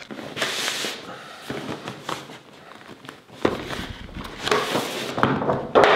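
Cardboard packaging being handled: a soundbar's inner cardboard box is pushed and slid out of its outer sleeve. Scraping and rubbing of cardboard comes with a few knocks, and it is loudest just before the end.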